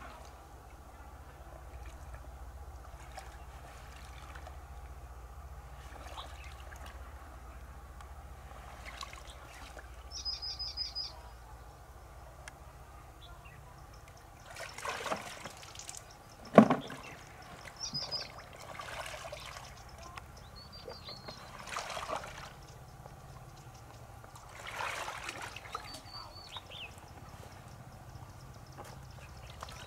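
River water sloshing and splashing several times as someone wades through it in waders, with one sharp, louder thump about halfway through. A small bird chirps in short high trills several times in between.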